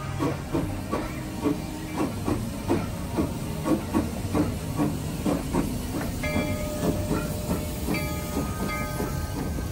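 Narrow-gauge Rio Grande 340 steam locomotive, a 2-8-0, chuffing steadily at about three exhaust beats a second with a steam hiss as it pulls its train past.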